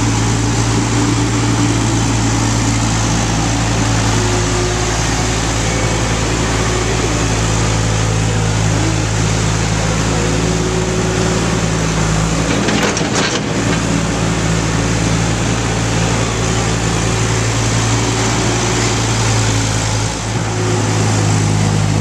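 A New Holland skid-steer loader's diesel engine running steadily at working speed while it loads hay, with a brief rattle about halfway through.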